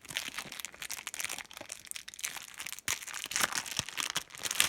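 A foil trading-card pack wrapper being torn open and crinkled, dense crackling with a short pause partway through.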